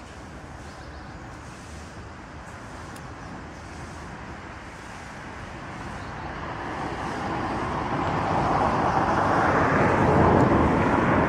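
Road traffic: a low background hum, then a passing vehicle's noise swelling from about halfway through to a loud peak near the end.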